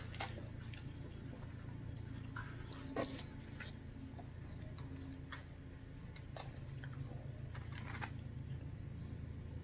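Close-up eating sounds: quiet chewing with scattered small clicks and taps of a plastic fork on a takeout bowl and foil, over a steady low hum. The sharpest click comes about three seconds in.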